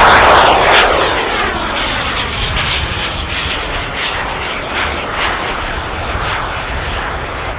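BF Turbines B100F jet turbine of a radio-controlled jet passing close at speed, loudest at the start with its whine dropping in pitch as it goes by. It then settles into a steadier, fainter sound as the jet climbs away.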